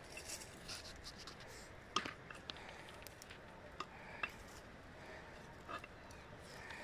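Faint clinks and scrapes of metal spoons against metal cooking pots and bowls, a few scattered sharp clicks, the loudest about two seconds in.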